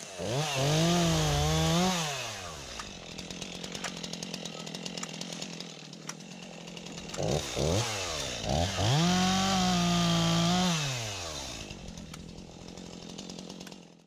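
STIHL MS251 two-stroke chainsaw running at full throttle for about two seconds and dropping back to idle. It gives a couple of quick blips of the throttle, then makes another long full-throttle run before settling to idle again, as it cuts the limbs off a felled maple.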